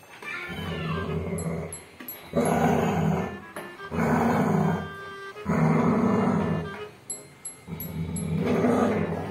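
Rottweiler growling in play while mouthing at bare feet, in about six bursts of roughly a second each with short pauses between them.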